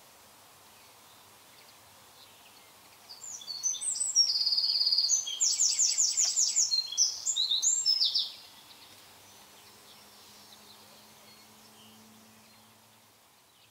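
A songbird singing one phrase of about five seconds: fast high trills and runs of rapid repeated notes, over faint steady background noise.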